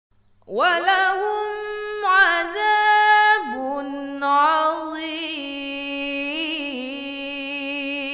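Quran recitation by a single voice, chanted in a slow, ornamented melody. It is one long drawn-out phrase with a wavering pitch that enters about half a second in and steps down to a lower note about three and a half seconds in.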